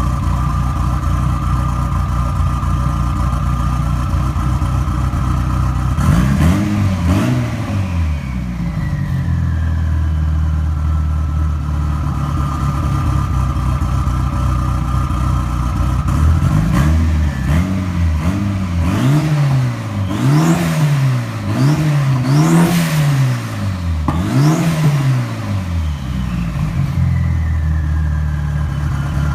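A built Mitsubishi Lancer Evolution VIII's turbocharged four-cylinder, exhausting through an aero turbine muffler, idling with a steady high turbo whistle. It is revved once about six seconds in and then blipped about five times in quick succession; after the revs the turbo whistle falls slowly in pitch back to its idle note.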